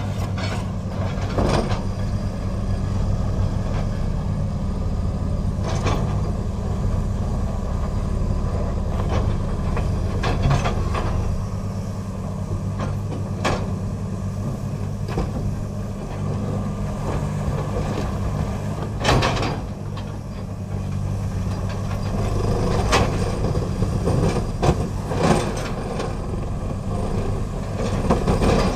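Komatsu hydraulic excavator's diesel engine running steadily under load while its Xcentric Ripper, an eccentric-mass vibrating ripper attachment, works its tooth into rock. About eight sharp cracks and clanks of rock breaking and shifting are scattered through it, the loudest a little past the middle.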